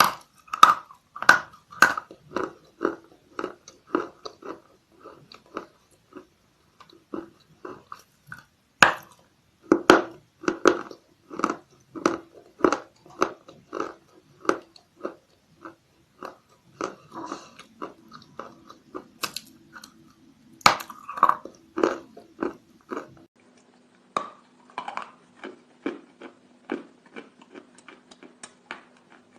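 Big blocks of chalk being bitten and chewed close to the microphone: a few sharp bites, each followed by runs of crunching chews at about two a second, with short pauses between runs. A faint low steady hum comes in near the end.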